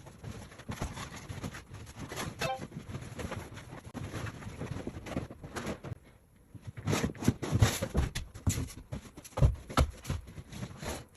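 Vinyl floor covering being shifted and rolled up by hand off a wet floor: irregular crinkling and scraping, with a few louder dull thumps in the second half.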